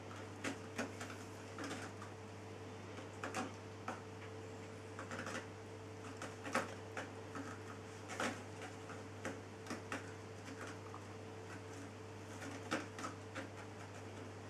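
Kittens moving and playing on a blanket: scattered soft clicks, scratches and rustles at irregular moments, over a steady low hum.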